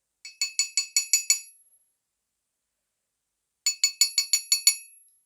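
Steel Parkside SDS Plus chisel bits clinking against each other in two quick runs of about seven strikes each, each strike ringing briefly with a bright metallic tone.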